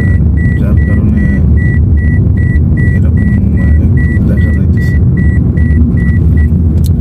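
Car cabin noise while driving: a low engine and road rumble, with a high electronic warning beep repeating about two to three times a second that stops near the end.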